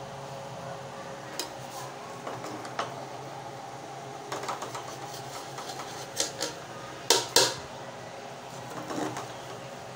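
Metal serving spoon clinking and scraping against a cooking pot as rice is dished out: scattered light knocks, with two sharper clanks a little past the middle, over a steady low hum.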